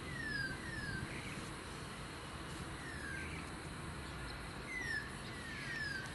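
Bird calls: short whistles that slide down in pitch, repeating every second or so, over a steady low rumble.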